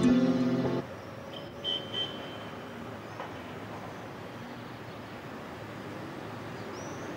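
The last notes of a music sting cut off about a second in, giving way to steady distant city traffic hum. A few short high chirps come near the end.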